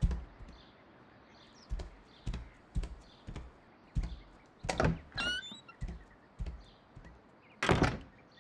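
Slow, heavy footsteps on a wooden plank floor, one dull thump about every half second to second, then a louder door sound near the end.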